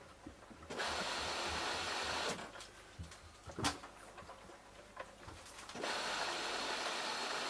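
Samsung Eco Bubble front-loading washing machine early in its bedding cycle, with water rushing in as a steady hiss that starts about a second in, stops about two seconds in, and comes back near the end. A few clunks sound in the pause between.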